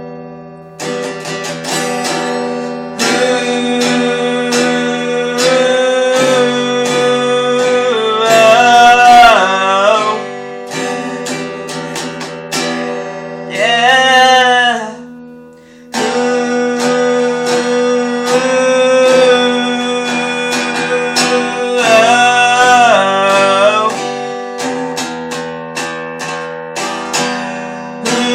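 Instrumental music: guitar strummed over sustained chords. A wavering melody line bends up and down in pitch three times, with a short drop-out just before the middle.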